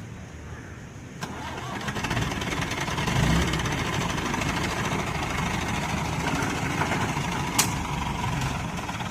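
Diesel engine of a Hydra pick-and-carry crane starting about a second in, picking up over the next two seconds and then running steadily. A single sharp click sounds near the end.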